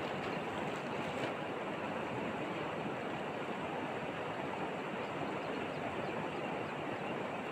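Steady rushing of flowing river water, even and unbroken.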